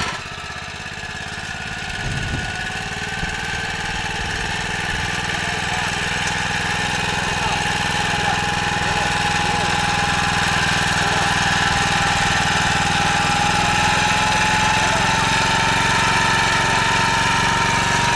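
Motor Sich MB-4.05 walk-behind tractor's petrol engine running steadily. Its level dips at the start, then the running builds slowly, with the engine note creeping up in pitch.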